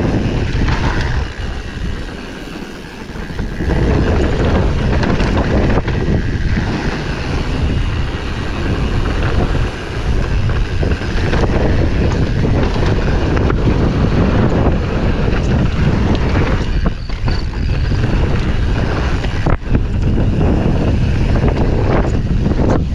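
Commencal Supreme DH29 downhill mountain bike descending a loose gravel trail: a steady rush of wind on the action camera's microphone mixed with tyre and frame noise, easing briefly about two seconds in, with a sharp knock about three and a half seconds before the end.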